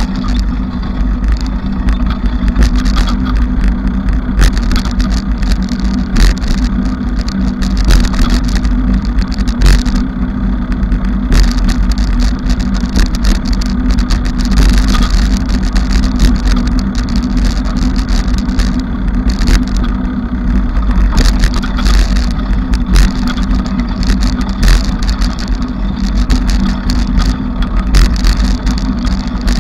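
Bicycle ride noise: a steady low rumble with frequent rattles and clicks.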